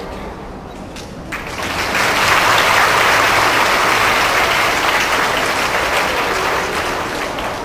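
A children's string ensemble's last held notes die away. About a second and a half in, a large audience breaks into applause that swells quickly, then slowly tapers off.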